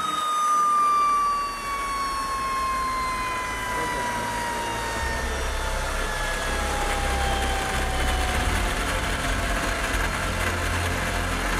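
AiResearch military gas-turbine auxiliary power unit spooling down, its turbine whine falling steadily in pitch as the RPM drops. A deep low rumble comes in about halfway through.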